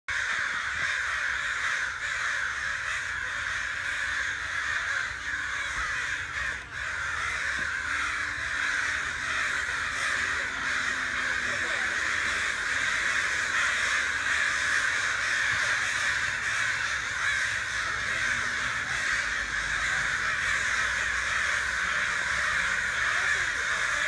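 A large flock of birds in the treetops calling all at once, a steady unbroken din of many overlapping calls.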